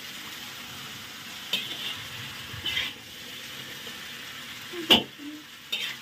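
Hakka noodles and shredded vegetables frying in a wok with a steady sizzle, stirred and tossed with a utensil that scrapes and knocks against the pan several times, loudest just before five seconds in.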